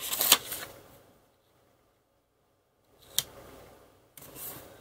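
Crisp rustle of paper sticker sheets being handled, broken by a couple of seconds of near silence, then a single sharp click about three seconds in and more soft paper rustle near the end.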